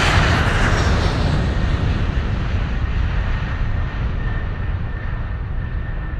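Airliner's turbofan engines at takeoff thrust, heard from inside the cabin, over the deep rumble of the takeoff roll as the plane lifts off. The hiss eases slowly, and a faint steady whine comes in about halfway through.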